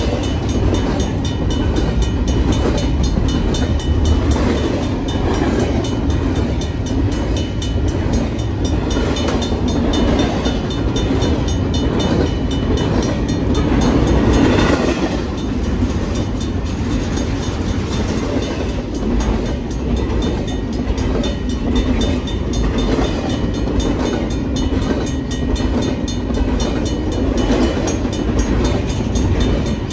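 BNSF double-stack intermodal freight train rolling past close by: a steady rumble and clatter of the well cars' wheels on the rails, a little louder about halfway through.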